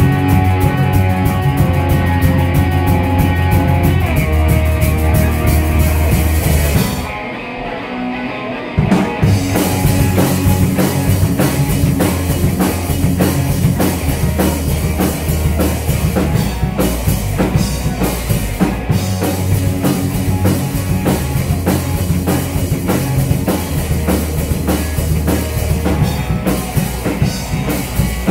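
Live rock band playing loud: electric guitar, electric bass and drum kit. About seven seconds in the band drops back for roughly two seconds, then comes back in full with driving drums.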